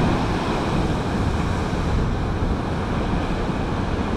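Storm-driven surf on the Mediterranean, waves breaking in a steady wash, with wind buffeting the microphone.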